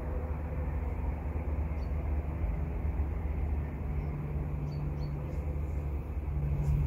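Steady low hum and rumble, like a distant engine, with a few faint high bird chirps.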